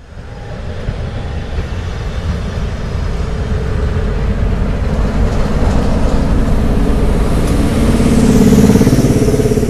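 Diesel locomotive engine running with a deep rumble, growing steadily louder and loudest near the end.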